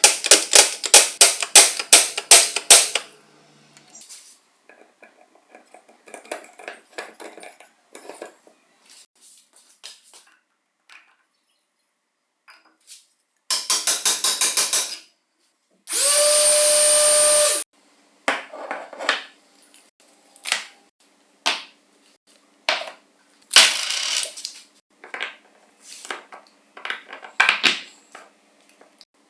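Workshop assembly sounds: a rapid run of sharp taps or ratcheting at the start and again about 14 s in, with scattered clicks and knocks of metal parts being handled. About 16 s in, a small electric motor spins up with a steady whine and runs for under two seconds before stopping.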